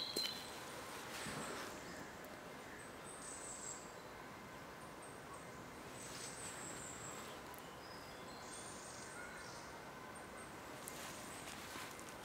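Quiet woodland ambience: a low, steady hiss with a few faint, high chirps now and then.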